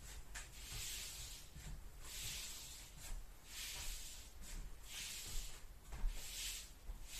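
Straw broom sweeping a floor: soft swishes about once a second.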